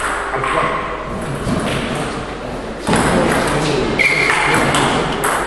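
Table tennis rally in a large hall: the ball knocks off the paddles and the table at an irregular pace, with a brief high squeak about four seconds in.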